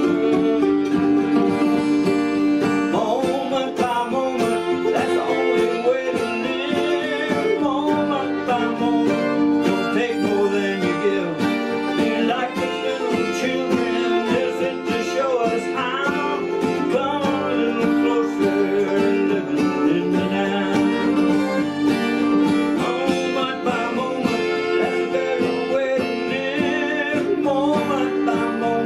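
Acoustic bluegrass-style music: a mandolin and an acoustic guitar playing together, with a man singing lead from about three seconds in.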